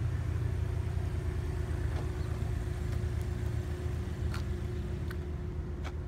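2016 Buick Cascada's 1.6-litre turbocharged four-cylinder engine idling, a steady low hum.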